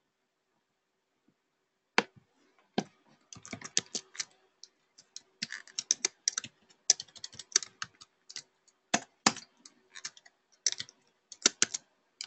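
Typing on a computer keyboard: irregular clusters of keystrokes, starting about two seconds in.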